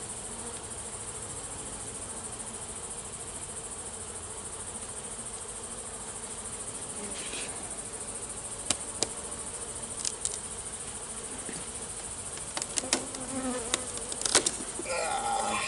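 Honey bees buzzing steadily around an open hive, with sharp cracks and scrapes in the second half as a metal hive tool pries at frames glued down with propolis.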